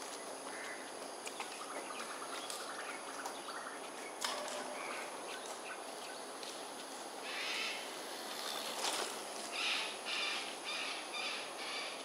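Harsh bird calls from roosting crows and cockatoos: scattered short calls at first, then a quick run of rasping calls about every half second through the second half.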